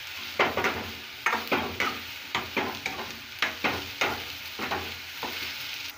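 A steel ladle scraping and knocking against a metal kadhai in quick repeated strokes, about three a second, as soya chunks are stirred in hot oil, over a steady frying sizzle.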